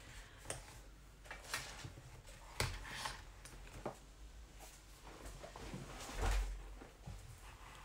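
Hands handling a sketchbook held open with metal binder clips: scattered clicks and knocks as the clips and pages are moved, then a dull thump about six seconds in as the book is laid flat on the wooden table.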